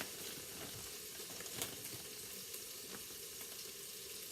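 Cubed chicken sizzling steadily as it browns in oil in an electric pressure cooker's pot, with a couple of faint clicks.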